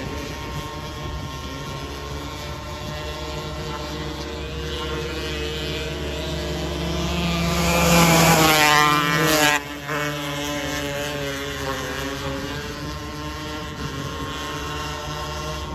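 270 micro sprint car engines running on a dirt oval. One car passes close: its note climbs to a loud peak about eight seconds in and falls in pitch as it goes by. The level drops suddenly a moment later.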